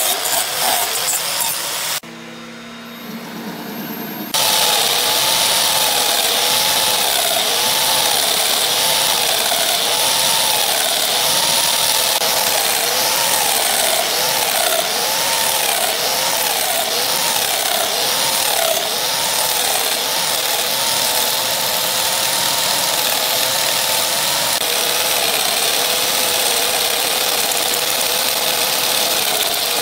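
Electric power-tool motor driving a small homemade wood lathe, running steadily with a whine that wavers up and down in pitch over a high hiss as a glued wood block spins. It briefly drops quieter about two seconds in, then runs steadily again.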